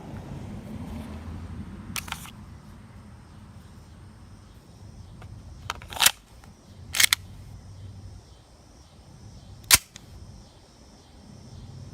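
Airsoft gun firing four sharp single shots at uneven intervals, the loudest near the end.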